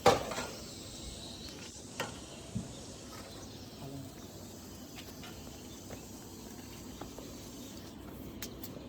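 A sharp knock right at the start, then a few faint, scattered clicks and knocks over a steady low background hiss.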